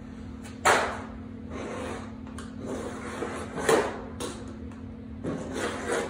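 A screwdriver tip scribing lines across galvanized sheet metal along a metal straightedge: two sharp scratching strokes about three seconds apart, then softer scraping and rubbing near the end.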